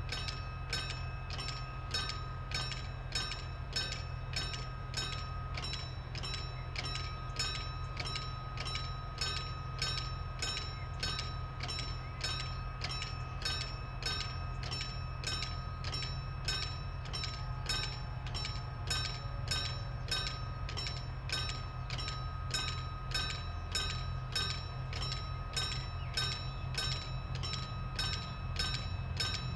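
Level-crossing bell ringing steadily, about two strokes a second, over the low drone of an ATR 220 diesel multiple unit's engines running at the station platform.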